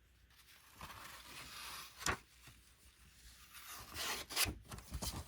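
CD liner-notes booklet and case being handled: soft rubbing and rustling of paper, with a sharp click about two seconds in and a louder rustle near the end.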